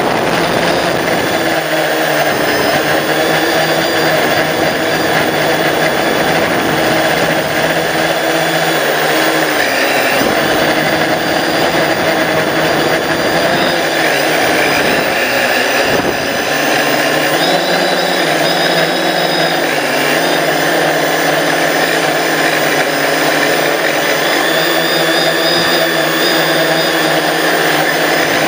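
A drone's electric motors and propellers buzzing in flight, heard up close through its onboard camera, the pitch rising and falling several times as the throttle changes.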